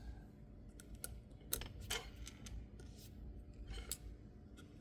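A few faint clicks and light taps as small metal parts of a folding knife are handled and set down, the two clearest about one and a half and two seconds in.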